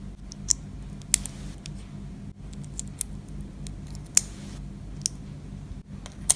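Tiny plastic miniature pieces clicking and tapping as they are fitted together by hand and set down on a wooden tabletop: a series of sharp, separate clicks, the loudest about four seconds in and again at the very end.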